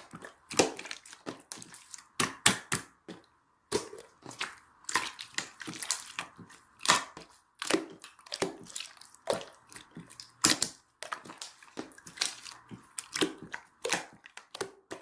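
Close-up handling noise: irregular sharp clicks and crackles with rustling between them, in quick clusters broken by short pauses.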